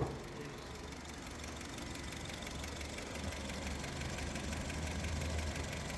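A 2020 Honda BR-V's 1.5-litre four-cylinder petrol engine idling with a steady low rumble that grows slightly louder, after a short click at the start. The car jerks and misfires under way, which the mechanic puts down to a cylinder not getting proper spark.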